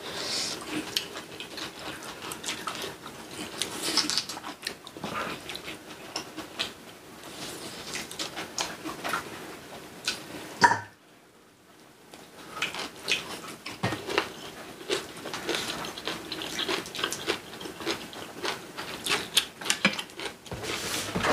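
Close-up eating sounds: chewing and biting of braised pork back ribs and aged kimchi, with chopsticks and spoons clicking against bowls and plates. There is a brief silent break a little after halfway through.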